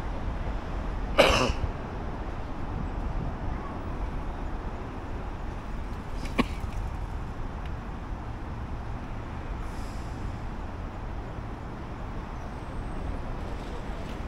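Steady low rumble of city street traffic. A brief, loud, sharp noise about a second in stands out above it, and a fainter click comes around six seconds in.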